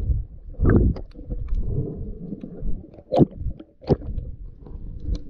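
Underwater sound picked up through a submerged camera: a muffled low rumble of moving water, broken by a few sharp clicks and knocks, the loudest a little past three seconds in.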